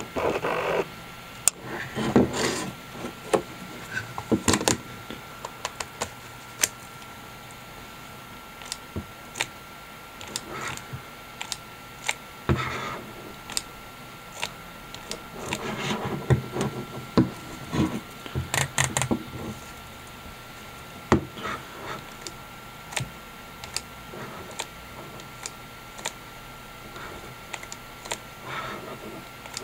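Canon TX 35mm film SLR being handled and worked by hand: many separate sharp mechanical clicks from its controls, mixed with rubbing and rustling of hands on the body and lens. A faint steady high tone runs underneath.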